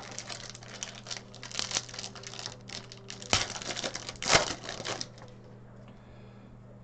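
Trading card pack and cards handled by hand: a quick run of crinkles, rustles and small clicks with two louder snaps near the middle, stopping about five seconds in.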